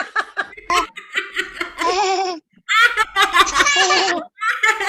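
A woman laughing on request, over a video call: a run of quick short 'ha' pulses, then several longer bouts of laughter with brief breaks.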